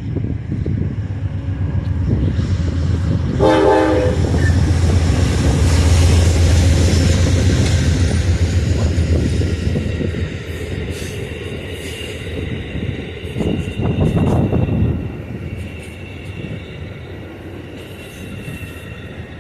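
Amtrak passenger train passing: a short horn blast about three and a half seconds in, then the heavy rumble and rail clatter of the train going by, dropping off after about fifteen seconds.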